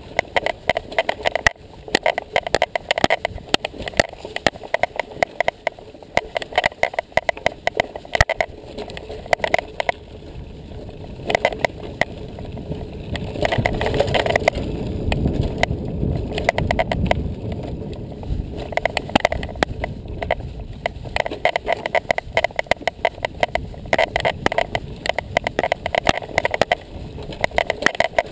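Mountain bike rattling and clattering over a rough dirt trail, with dense rapid clicks and knocks throughout. Wind rushes over the microphone for several seconds in the middle.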